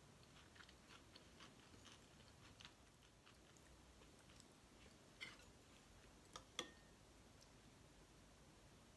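Near silence with faint small clicks of food being handled, then three sharper clicks a little past the middle: a metal spoon tapping a ceramic sauce bowl.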